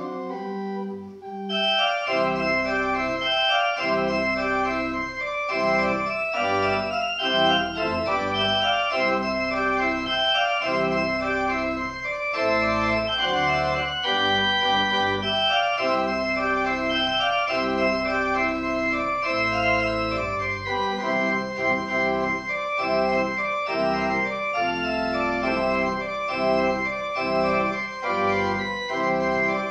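Church pipe organ playing sustained chords and a moving melody; after a brief softer opening, the full sound with deep bass notes comes in about two seconds in and holds steady.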